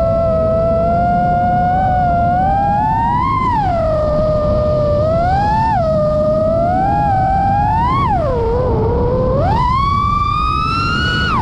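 FPV freestyle quadcopter's brushless motors and propellers whining, the pitch swooping up and down with the throttle several times, then climbing steeply about two-thirds of the way through and holding high near the end. A low rushing of wind runs underneath.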